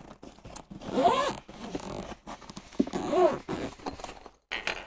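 Zipper of a Magma CTRL semi-rigid carry case being pulled open around its edge in two main pulls, about a second in and about three seconds in, the rasp rising and falling in pitch with the pull.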